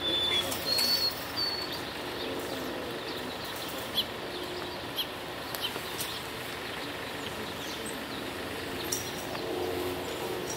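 Small birds giving a few short high whistles in the first second or so, then scattered brief chirps, over steady outdoor background noise of the city.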